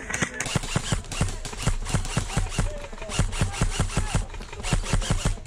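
A fast, uneven run of thuds and clicks, about five a second, over a low rumble.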